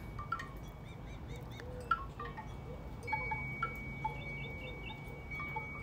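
Wind chimes ringing in the breeze, with scattered single notes at several different pitches and one note held longer. There is a single short knock about two seconds in.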